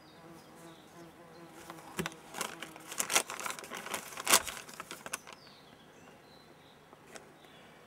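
Thin plastic ration packaging crinkling and rustling as it is handled, loudest from about two to five seconds in, with a light knock about two seconds in as a small tin is set down on the table. A fly buzzes steadily through the first few seconds.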